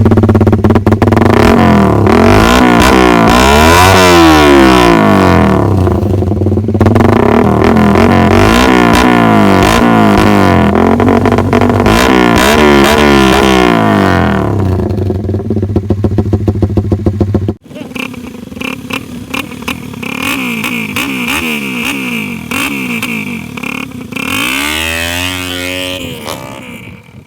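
Suzuki Raider 150 Fi single-cylinder four-stroke engine running through a Vmax conical aftermarket muffler, revved several times so the exhaust note rises and falls. About two-thirds through, the sound suddenly drops much quieter; the engine keeps running and is revved once more near the end.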